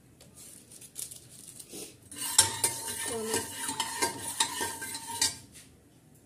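A steel spatula scraping and clinking against the inside of a pressure cooker as food is stirred, with a steady metallic ring. It starts with a few light knocks, turns into busy scraping about two seconds in, and stops about a second before the end.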